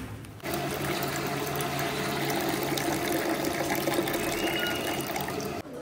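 Water running steadily from a tap into a small plastic bowl, filling it. It starts about half a second in and cuts off suddenly just before the end.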